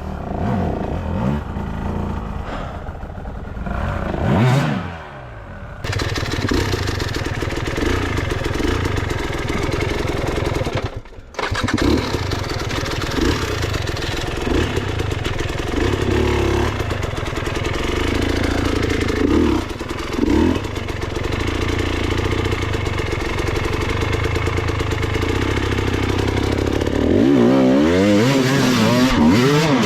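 Off-road enduro motorcycle engine running hard, with the revs rising and falling as the throttle is blipped. The sound changes abruptly about six seconds in and drops out briefly near the eleven-second mark, then carries on steadily with repeated throttle bursts.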